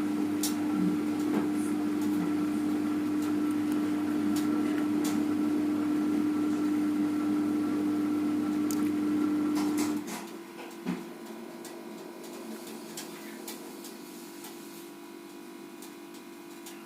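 Front-loading washing machine starting its cycle: a steady electric hum that cuts off about ten seconds in, then a quieter hum with a few light clicks.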